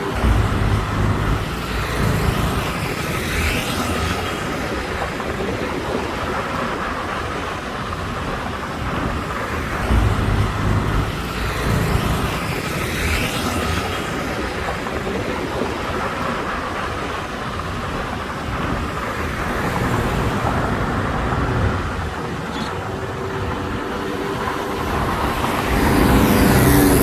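Busy road traffic: cars and other motor vehicles passing steadily, with a few louder pass-bys.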